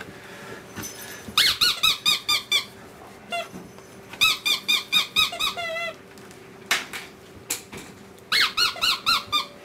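Squeaky dog toy being chewed by puppies, giving quick runs of short high squeaks in three main bursts with a few single squeaks between.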